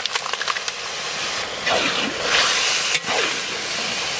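Raw lote fish (Bombay duck) sizzling as it hits hot mustard oil and fried spice paste in a large pan: crackling at first, then a louder rush of hissing about two seconds in as the pile is stirred with a spatula.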